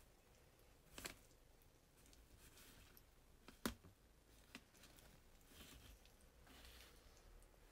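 Faint smacking and rustling of baby hedgehogs eating mushy puréed cat food from a plate, with two sharp clicks, about a second in and about halfway through.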